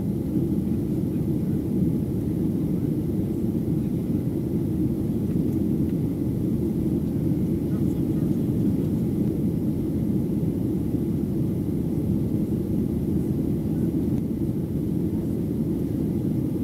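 Steady cabin noise of a Boeing 737-700 in flight: its CFM56-7B turbofan engines and the airflow over the fuselage make a deep, even rumble that holds constant.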